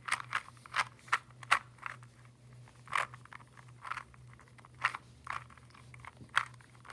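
2x2 Rubik's cube being scrambled by hand: the plastic layers click sharply and irregularly, about one turn every half second, as they are twisted.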